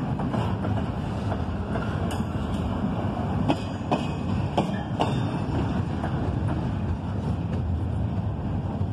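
Double-stack intermodal well cars rolling past close by: a steady rumble of steel wheels on rail, with scattered sharp clicks and knocks as the wheels pass.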